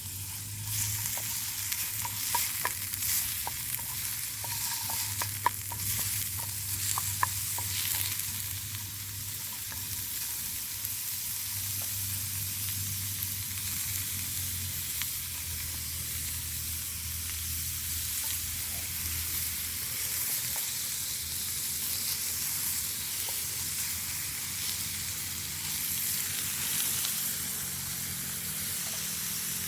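Food sizzling as it fries in a pan over a campfire, a steady hiss. Sharp clicks and knocks of stirring come in the first eight seconds or so. A low steady hum sits underneath for much of the time.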